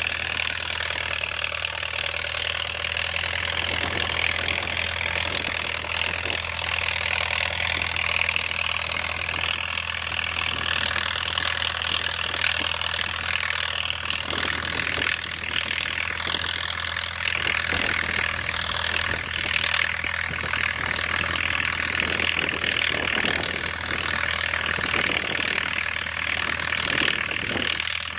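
Farmall 300 tractor engine running steadily under load while pulling a disc harrow and quack digger.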